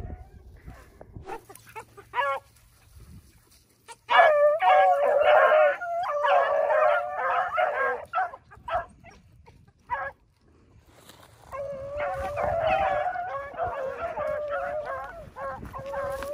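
A pack of beagles baying in chorus while running a rabbit, many voices overlapping. A single call sounds about two seconds in, the full chorus rises at about four seconds, drops away around ten seconds, and picks up again a little later.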